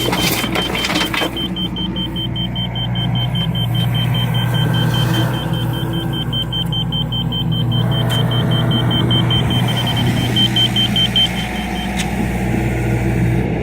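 John Deere excavator's diesel engine running steadily, with a rapid high-pitched beeping over it that stops near the end.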